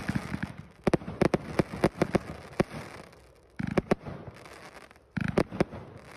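A 188-shot firework cake firing: sharp launch thumps and bursting reports come in rapid volleys, with fresh volleys starting suddenly about three and a half seconds in and again about five seconds in.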